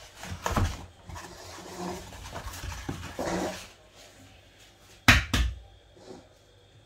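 Kitchen handling noises as eggs are taken from a carton and cracked over a mixing bowl: a knock just after the start, then rustling and scuffing, then two sharp taps close together about five seconds in as an egg is knocked on the bowl.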